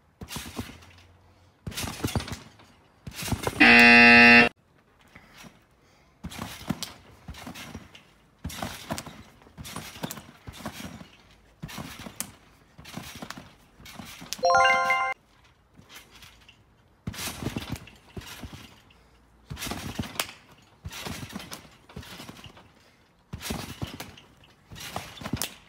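Repeated thumps of someone bouncing on a spring trampoline, in uneven runs of bounces. A loud buzzer-like tone about three seconds in stops abruptly after about a second, and a short stepped chime comes near the middle.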